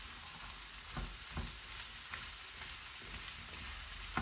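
Chopped meat and vegetables sizzling in oil in a frying pan, with a steady hiss. A spatula knocks and scrapes against the pan a few times as the food is stirred.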